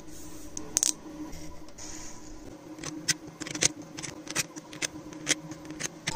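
Irregular sharp clicks of small 3D-printed plastic parts being handled and set down on a hard table, over a steady low hum.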